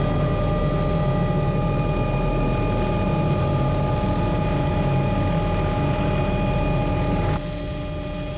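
Small turbine helicopter running, heard from inside the open cockpit: a steady whine over a loud low rumble from the engine and rotor as it prepares for and begins its takeoff. About seven seconds in the sound steps down a little.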